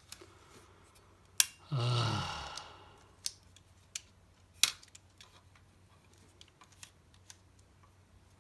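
Sharp metal clicks and lighter ticks from a Nikon FM2 camera body being worked by hand, with the shutter release tried on a shutter that will not fire. The loudest click comes about a second and a half in and another just before the middle.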